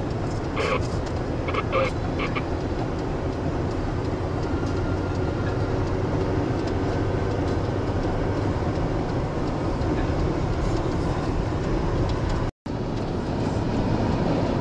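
Road noise heard inside a moving car: a steady rumble of tyres and engine, with a few faint clicks in the first two seconds. The sound cuts out for an instant near the end.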